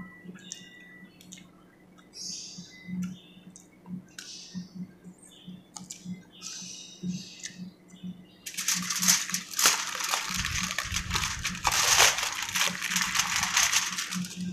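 Soft scattered eating clicks, then from about eight seconds in a long stretch of loud crinkling and crackling aluminium foil as the foil under a grilled fish is handled.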